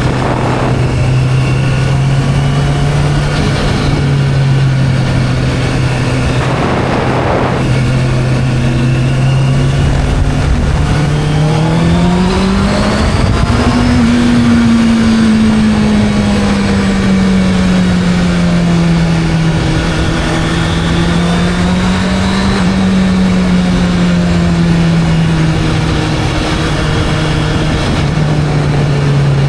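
Sport motorcycle engine running under way, its note holding steady, then climbing in pitch as it accelerates a little under halfway through and easing back down as it settles into a lower cruise.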